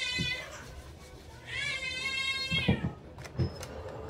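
A cat meowing: one long meow ending just after the start and another drawn-out meow of over a second around the middle, each rising, holding and falling. A few light knocks from things being handled on the table, one sharp one near the end of the second meow.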